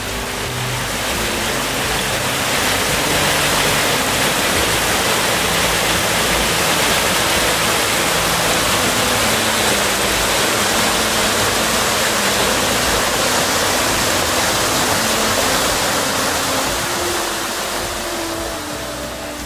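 Waterfall on a rocky fell stream: white water rushing steadily over boulders, swelling about a second in and easing near the end.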